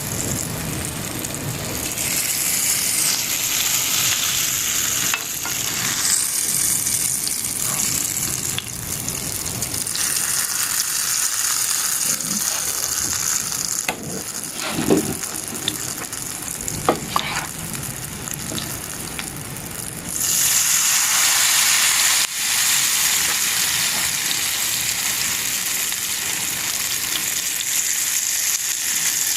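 Shrimp ukoy batter sizzling as it fries in hot oil in a pan, with a few sharp clicks and knocks about halfway through. The sizzle grows louder about two-thirds of the way in.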